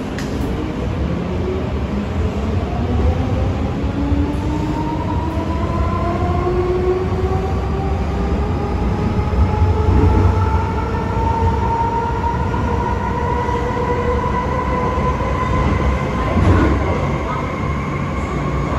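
MTR M-train electric multiple unit accelerating hard under full power. Its traction motors give a howling whine of several tones that rise steadily in pitch, over the steady rumble of the wheels on the track.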